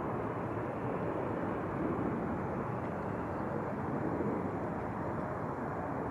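Jet airliner engine noise, a steady, even rush with no distinct whine or pitch change.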